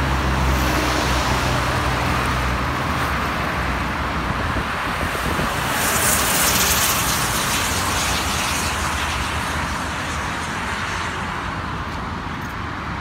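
Road traffic passing close by: a steady rush of tyre and engine noise, with a low engine hum that fades over the first few seconds. The rush swells about six seconds in and eases off toward the end.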